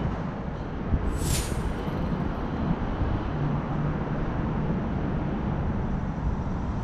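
Steady low rumble of outdoor background noise, distant road traffic and wind, with a brief high hiss about a second in.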